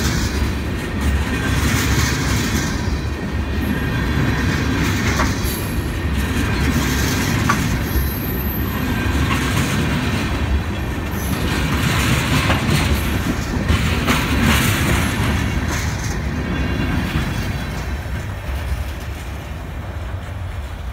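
Freight train of tank cars rolling past at close range: a steady rumble of steel wheels on rail, with clicks over the rail joints and brief high wheel squeals now and then. It fades over the last few seconds as the end of the train moves away.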